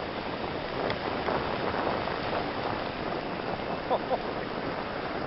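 Steady rushing noise of wind and a car on the road, with two brief squeaks about four seconds in.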